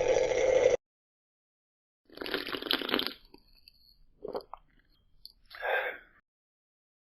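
Eating sound effect: a crunchy bite about two seconds in, then a few shorter chewing crunches. Before it, a steady liquid-like hiss cuts off in the first second.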